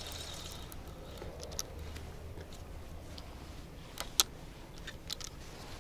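A few short, sharp clicks from handling a fishing rod and reel, the loudest about four seconds in, over a faint low background hum.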